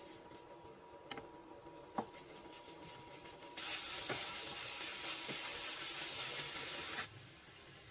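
Wooden spatula knocking and scraping against a frying pan as raw chicken pieces are stirred, a few separate knocks. About halfway a sizzling hiss starts, runs for roughly three seconds and cuts off suddenly.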